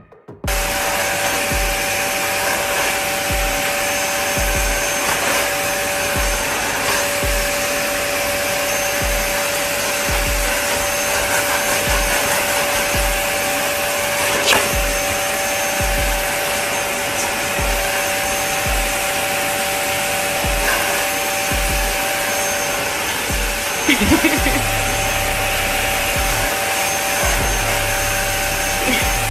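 Vacuum cleaner with a floor head on a wand, running steadily with a constant two-note motor hum under its rushing suction noise.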